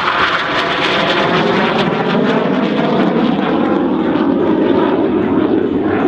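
BAE Hawk 127 jet trainer's single Adour turbofan running loud during a display pass, its pitch sinking as the jet passes and moves away.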